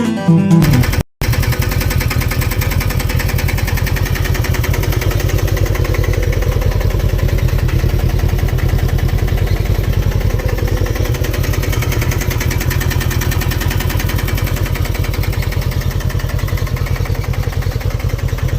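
Polaris XP 1000's parallel-twin engine idling steadily with a fast, even rattle: cam chain noise, from a slack cam chain. A second of guitar music comes before it.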